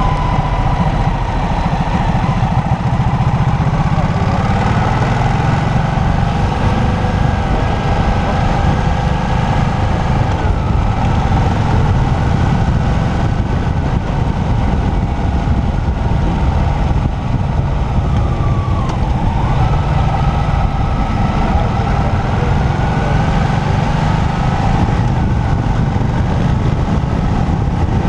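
Motorcycle engine running while riding, its note climbing slowly and dropping briefly in pitch twice, about ten and nineteen seconds in, over heavy wind rumble on the microphone.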